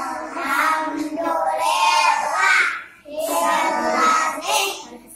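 Young children singing a song together in two phrases, with a brief pause about three seconds in.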